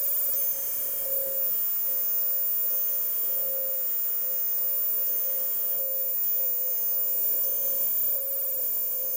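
3040 CNC router cutting polystyrene: the spindle gives a steady high whine that swells slightly now and then, over a high hiss, with faint higher tones from the machine that step up and down every second or two.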